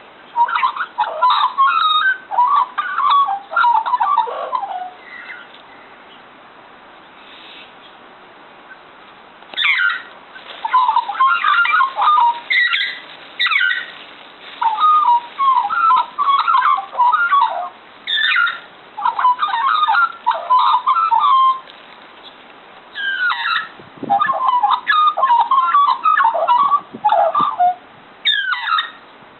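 Cockatiel singing: phrases of quick warbling chirps and whistles that jump up and down in pitch, broken by pauses of a few seconds.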